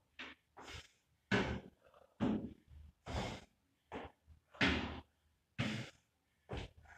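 A man's hard, heavy breathing mid-workout: loud gasping breaths about once a second, mixed with the dull thuds of his feet stepping onto and off a plyo box.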